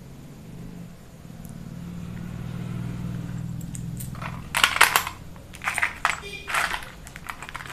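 Small metal-shanked grinding bits clicking and rattling against a clear plastic accessory case as they are picked through, in a quick cluster of clicks in the second half. A low hum runs under the first half.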